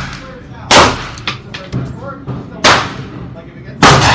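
Gunshots on an indoor range: three sharp reports, roughly a second or two apart, each followed by a ringing echo off the range walls.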